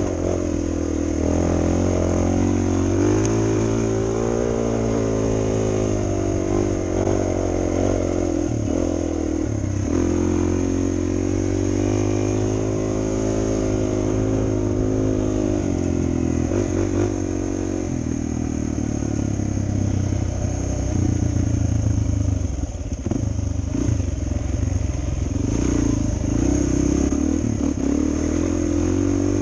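Suzuki DR 400 dual-sport motorcycle's single-cylinder four-stroke engine running under way, its pitch rising and falling again and again with the throttle. A few short knocks come through after the middle.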